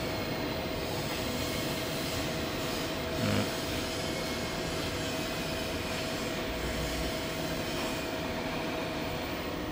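Steady whir and electrical hum of a hybrid solar inverter's cooling fans running under a load of about 4.4 kW drawn from the battery alone, with a constant mid-pitched tone. There is one brief low bump about three seconds in.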